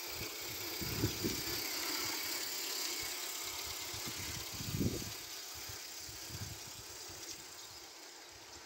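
Accucraft Bagnall 7/8ths-scale live-steam model locomotive running on garden track, giving a steady hiss that fades after about five seconds as it draws away. There are a few low thumps about a second in and near the middle.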